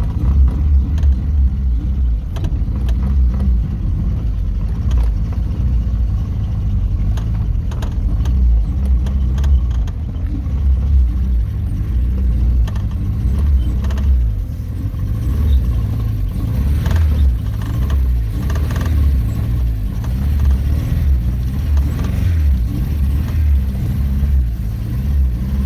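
A car creeping along at low speed with its engine running, under heavy, deep thumping bass from car sound systems that comes and goes in pulses.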